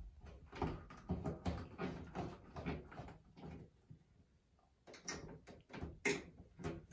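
Rubber flexible 90-degree drain elbow being pushed and twisted onto a metal drain pipe stub: soft rubbing and handling noise, then a few sharp clicks and knocks about five and six seconds in.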